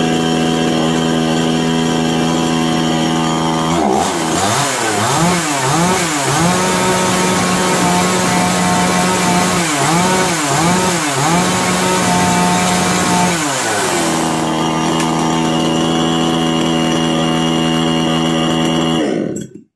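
KisanKraft KKC SP6522 two-stroke petrol chainsaw idling steadily. About four seconds in it is revved up and down in several quick blips and held at high revs twice, then drops back to a steady idle without stalling. The sound cuts off just before the end.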